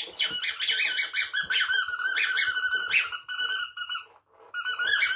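High-pitched squeaky chattering given as a squirrel puppet's voice: rapid pulses of squeaks on a nearly steady pitch, breaking off briefly about four seconds in and then starting again.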